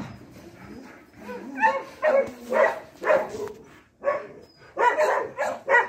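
Dog barking and whining in a run of short calls, with a lull in the middle before more calls near the end.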